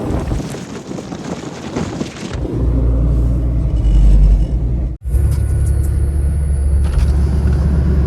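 Vehicle on the move, a steady low rumble of road and engine noise, with a broader hiss like wind in the first couple of seconds. The sound drops out for an instant about five seconds in, then the rumble carries on.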